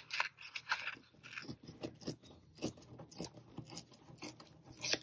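A sheet of acrylic-painted paper being torn by hand, an irregular string of short crackling rips, with a louder one near the end.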